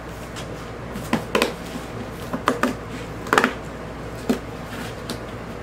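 Hands handling a cardboard shipping box: several short, sharp scrapes and knocks in small clusters, the loudest about three and a half seconds in.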